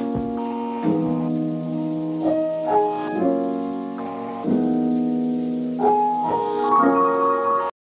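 Background piano music, slow held chords changing about once a second, stopping abruptly near the end.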